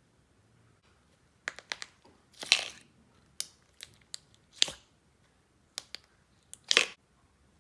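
Clear slime being pressed and stretched by hand, giving off sharp clicks and short crackling pops in irregular bursts, the longest a crackle of about half a second.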